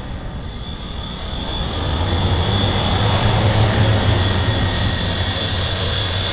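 Small quadcopter drone's propellers spinning with a steady high whine, growing louder about two seconds in as the drone lifts off from the grass and climbs away.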